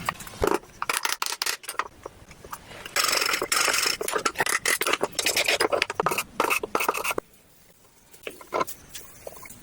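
Hand scraping and rubbing on wood: a fast run of rasping strokes mixed with sharp taps, densest about three to four seconds in and stopping abruptly a little after seven seconds, followed by a few light taps.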